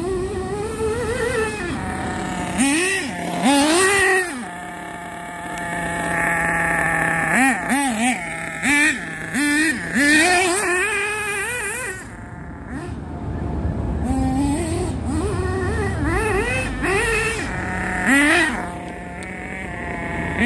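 Thunder Tiger EB4 S3 nitro buggy's .28 two-stroke glow engine on 16% nitro, revving up and down again and again as the car is driven. The pitch settles to a steady idle twice, a few seconds in and again about two-thirds of the way through.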